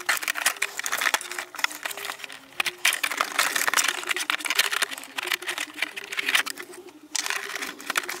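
The hard plastic of a blow-molded tool case being sawn and scraped with a utility knife: a fast run of rasping strokes and clicks. Background music with a melody of short notes plays underneath.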